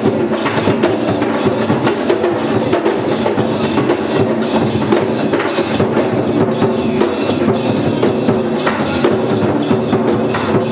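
A group of drummers playing a dense, steady, fast rhythm together, many strikes a second with no break.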